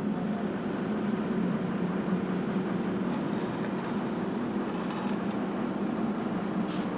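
Steady low rumble of noise, even throughout, with no clear tone or rhythm.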